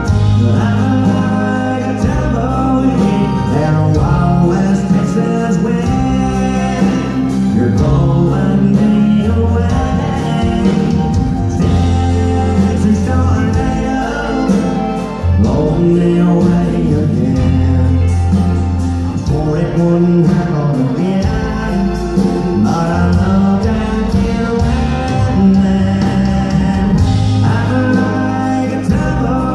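A live country band playing over a concert hall's PA, heard from the audience, with guitar over a steady bass line.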